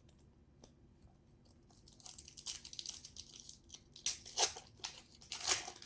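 A foil trading card pack wrapper being torn open and crinkled: crackling rustles start about two seconds in, with louder tearing bursts near the middle and end.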